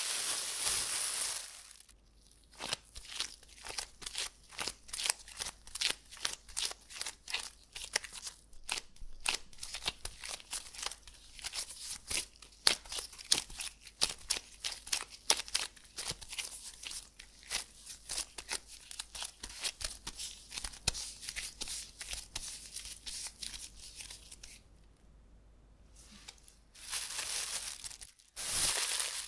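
A plastic bag crinkling, then gloved hands kneading and pressing a ball of pastry dough on a countertop: a long run of quick, irregular small clicks and crackles. Near the end the plastic bag crinkles again as the dough is set into it.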